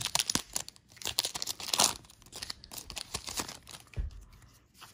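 Foil wrapper of a Pokémon Shining Fates booster pack being torn open, with a dense run of sharp crackles for about the first two seconds, then quieter crinkling. A soft low thump about four seconds in.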